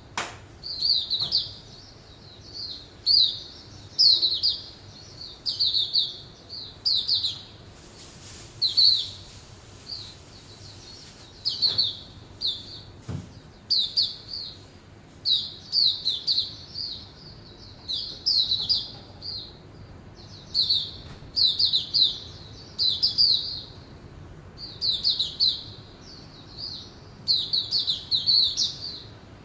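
Hume's white-eye (Zosterops auriventer) calling in quick, high chirping phrases, about one phrase a second. There is a sharp click right at the start and a short hiss about eight seconds in.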